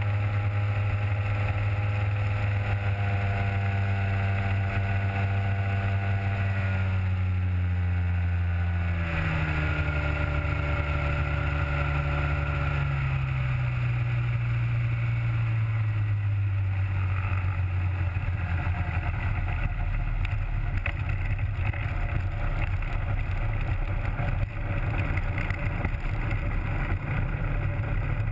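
Rotax 503 two-stroke twin engine of a Hy-Tek Hurricane 103 ultralight, driving a three-blade propeller, running steadily; its pitch drops in two steps, about a third of the way in and again near the middle, as the throttle is eased back, then it settles into a lower, rougher steady running.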